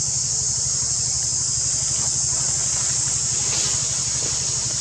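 A steady, high-pitched insect drone with a low, fast-pulsing engine hum beneath it, as of a motor idling.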